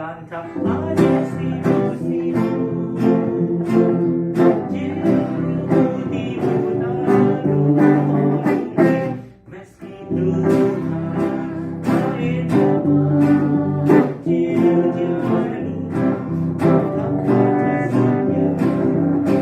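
Several acoustic guitars strummed together in a steady rhythm, playing an Indonesian folk tune, with a brief break about halfway through before the strumming resumes.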